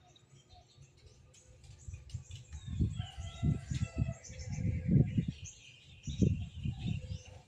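Small birds chirping and calling, with gusts of wind buffeting the microphone. The wind comes in as an irregular low rumble from about two and a half seconds in and is louder than the birds.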